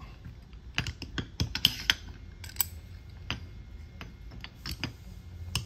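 Half-inch wrench tightening the bolts of a countershaft splitter tool clamped around a motorcycle transmission gear: a string of irregular sharp metal clicks and ticks.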